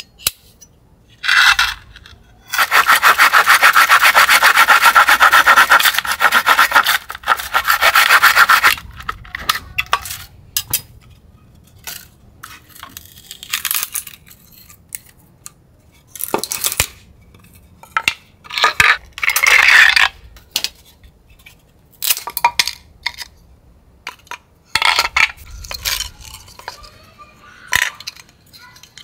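Folding saw cutting through an old, dry wooden board in fast back-and-forth strokes for about six seconds. After that come scattered short scrapes, knocks and cracks as the cut pieces are handled and split into thin slats.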